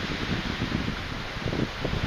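Strong wind from an approaching typhoon: a steady rushing hiss, with gusts buffeting the microphone in uneven low thumps.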